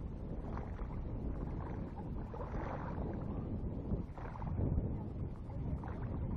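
Strong wind buffeting the microphone: a low rumble that rises and falls with the gusts.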